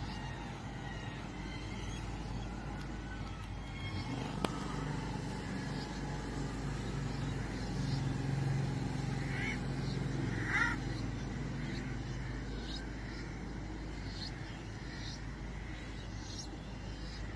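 Busy city street ambience: a steady hum of road traffic with a murmur of distant voices, and two short sharp calls about ten seconds in.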